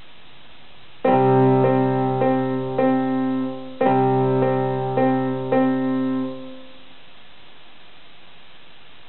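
Portable electronic keyboard played with a piano voice: two short phrases of four evenly spaced notes, the first starting about a second in and the second about four seconds in, over a held low note. The notes fade out after about six and a half seconds.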